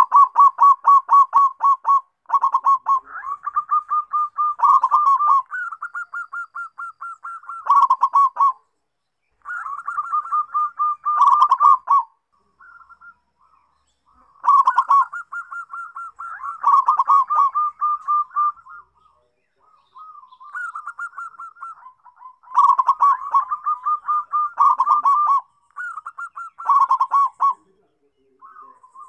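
Zebra dove (perkutut) singing: rapid runs of short cooing notes, each phrase lasting one to three seconds with brief pauses between.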